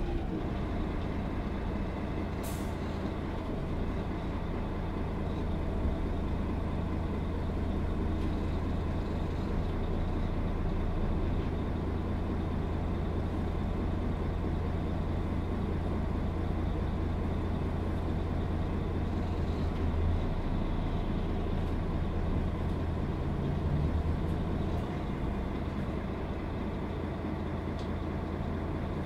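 Setra S 415 NF city bus's diesel engine running steadily at an even pitch, with a short hiss about two and a half seconds in.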